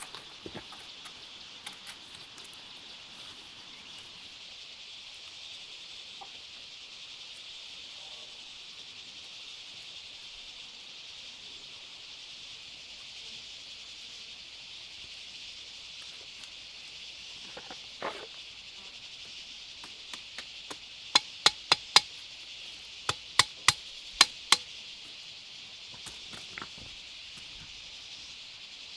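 Steady high drone of insects. Near the end come about nine sharp knocks in two quick runs, several a second.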